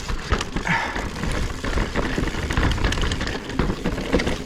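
Mountain bike riding through a rock garden: tyres rolling and bumping over rock, with many short knocks and rattles from the bike.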